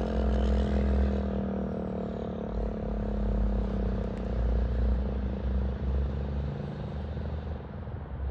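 A vehicle engine running steadily with a low rumble, with a hum that fades out in the first few seconds.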